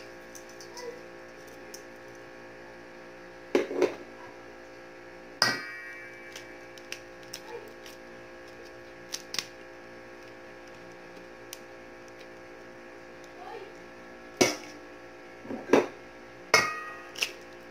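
Sharp knocks and clinks of eggs and containers against a mixing bowl as salt is shaken in and eggs are cracked in. There is a pair of knocks around four seconds in, one near six, and a cluster of four in the last few seconds, over a steady electrical hum.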